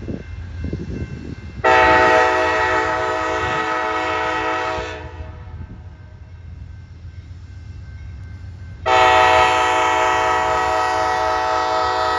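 Amtrak GE Genesis P42DC diesel locomotive sounding its air horn in two long blasts, the first about two seconds in and the second near the end. Under the blasts is the low, steady rumble of the approaching train.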